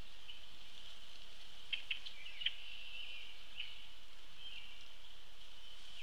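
Outdoor feeder ambience: a steady high-pitched chorus hum, with several short, sharp bird chips clustered about two seconds in and a few brief chirps later.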